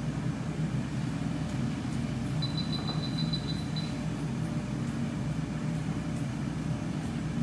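Steady low mechanical hum of equipment and ventilation in a veterinary exam room, with a quick string of high electronic beeps lasting about a second and a half, starting about two and a half seconds in.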